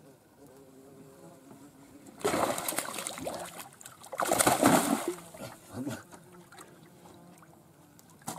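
Two bursts of splashing water, about two and four seconds in, over the faint steady buzz of a flying insect.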